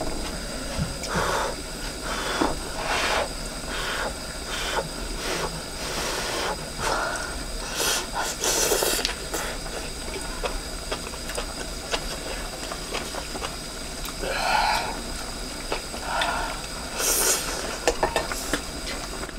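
Close-up eating sounds of hot pot: repeated chewing and slurping of meat and vegetables, with a couple of louder breathy puffs, about 8 seconds in and near the end, from blowing on the hot food. A steady faint hiss runs underneath.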